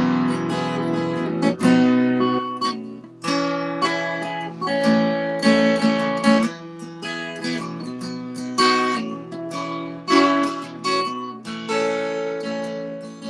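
Acoustic guitar strummed, a run of ringing chords struck every half second or so, with picked notes between the strokes.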